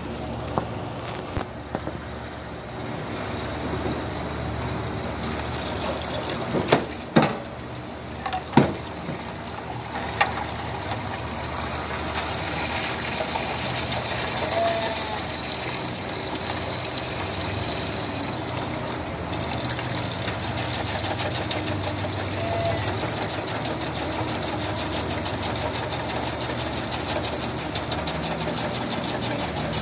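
Tap water running into a metal basin while a stainless steel pail is scrubbed with a brush, with a few sharp metal knocks about seven to nine seconds in. A steady motor hum runs underneath.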